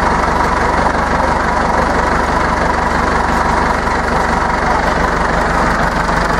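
Tractor engine idling steadily, a constant low drone with a fast even pulse.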